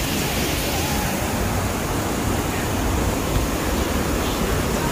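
Waterfall rushing in a steady roar of falling water, its flow heavy and high after rain.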